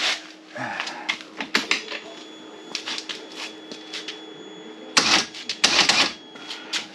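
Hands clicking and rattling small hard parts while taking apart a piece of fishing gear to reach a frayed rope. A steady low hum runs underneath, and the loudest clatter comes about five and six seconds in.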